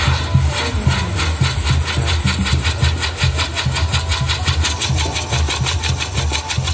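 Ground fireworks piece on a metal frame spraying sparks: a loud rushing hiss that pulses fast and evenly, with a low rumble underneath.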